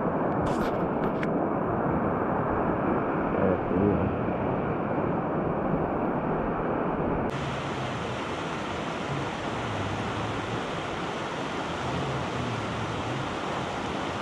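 Shallow mountain river rushing over rocks: a steady wash of flowing water. There are a few light clicks about a second in, and the rush turns brighter and hissier about halfway through.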